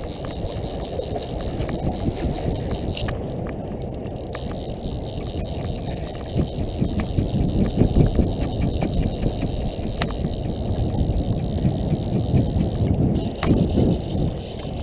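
Steady low rumble of wind buffeting the microphone, mixed with handling noise, with a few faint clicks.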